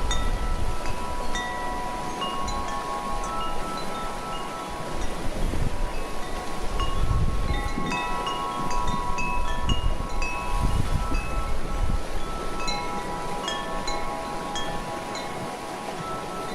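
Wind chime ringing, its several pitched tones struck irregularly and left to ring on. Wind gusts rumble against the microphone underneath.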